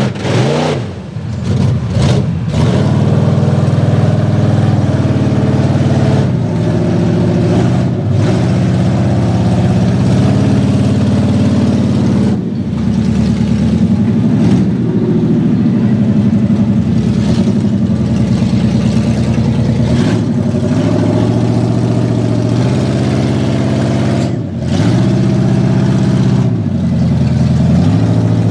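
A big lifted GMC mud truck's engine revving hard under load as it churns through deep mud and water, its pitch rising and falling repeatedly as the throttle is worked.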